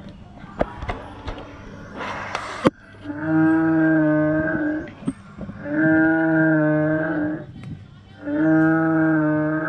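Animatronic Stegosaurus giving its recorded dinosaur call through a loudspeaker, set off by its sensor as visitors come near: three long calls of steady pitch, each about a second and a half to two seconds, with short gaps between. A short hiss comes about two seconds in, before the calls.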